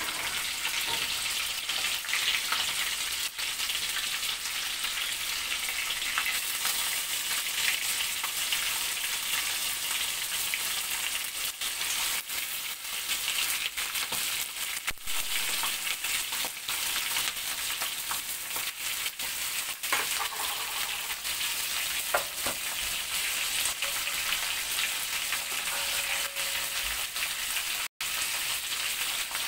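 Hot oil with cumin seeds sizzling steadily in a kadai as stuffed green capsicums are laid into it for the tempering, with now and then a soft knock as a pepper goes into the pan.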